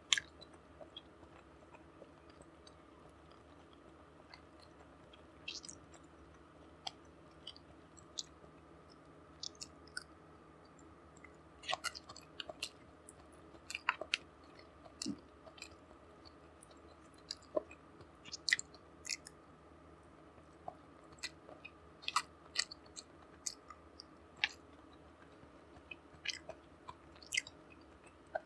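Close-miked chewing and mouth sounds: irregular wet smacks and small crunches at an uneven pace, with quiet gaps between bites.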